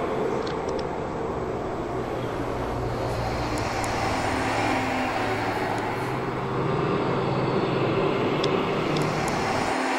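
A steady, dense rumbling drone with a few held low tones and occasional faint high ticks.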